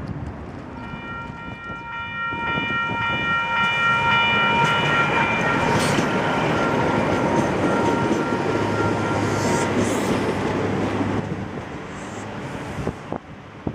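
Auckland AM class electric train passing close along the platform: a rising rush of wheels on rail and moving air that peaks for several seconds and then dies away. A steady high-pitched tone sounds over it for most of the pass.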